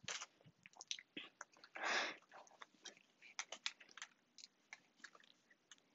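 Faint, scattered small clicks of a handheld LED-light remote's buttons being pressed and handled, with a brief rustle about two seconds in.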